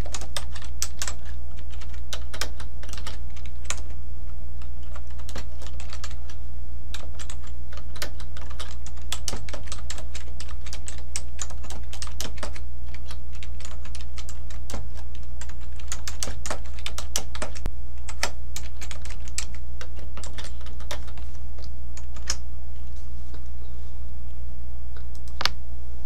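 Typing on a computer keyboard: irregular runs of keystrokes with short pauses, over a steady low hum. One louder single click near the end.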